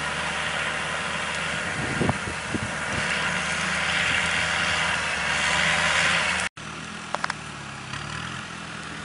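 GAZ-3409 Bobr tracked snow-and-swamp vehicle with its Cummins 2.8-litre diesel running steadily under a loud hiss that swells as it moves through the water. The sound cuts off suddenly about six and a half seconds in and resumes as quieter engine running.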